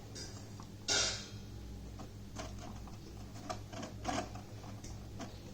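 Faint clicks and rustling from handling the capacitor wire leads and the fridge compressor's plastic relay, with a short scraping rustle about a second in and a few light ticks after it, over a steady low hum.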